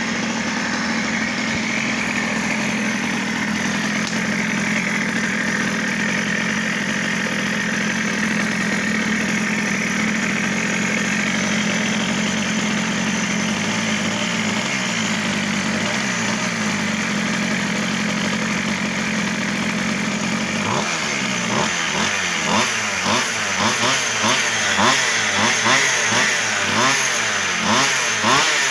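1/5-scale RC car two-stroke petrol engine on a test run: it idles steadily for about twenty seconds, then is blipped repeatedly, revving up and dropping back about once a second until the end.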